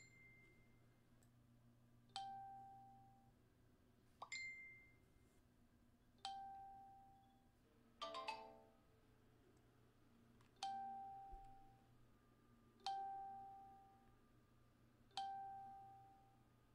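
Facebook notification chimes from a computer, each signalling a newly arrived chat message: about eight short pings roughly two seconds apart, each a clear tone that fades out, with several overlapping just past halfway.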